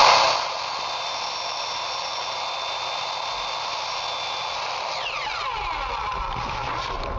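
A power drill running steadily, with a whine that falls in pitch about five seconds in.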